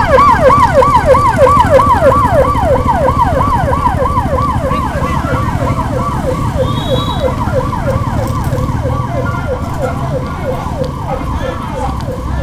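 Electronic siren sounding a fast yelp, about four quick sweeps up and down a second, gradually fading, over the low running of motorcycle engines.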